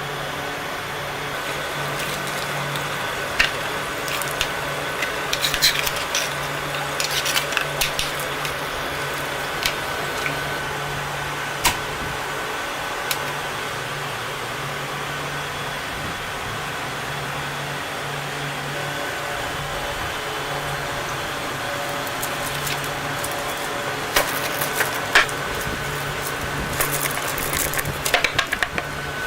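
A machine running with a steady hum, with scattered sharp clicks and clatters that come in clusters a few seconds in and again near the end.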